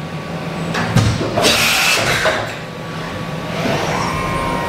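Yama Seiki AV-1060 CNC vertical machining center humming steadily with its power on. There is a thump about a second in and a short hissing whoosh just after. Near the end a whine rises and then holds steady as the direct-drive spindle spins up.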